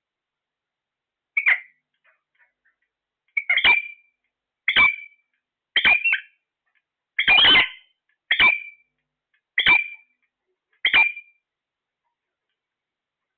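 A parrot giving a string of eight short, shrill squawks, about one every second and a bit.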